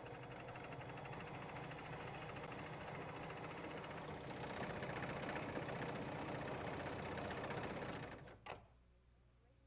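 Husqvarna Huskylock 936 serger sewing a chain stitch: a steady fast run of rapid stitch strokes, a little louder about halfway through. It stops about a second and a half before the end with a short knock.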